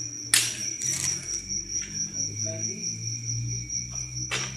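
Insects trilling steadily in a high, even tone, with two sharp knocks: a loud one about a third of a second in and another near the end.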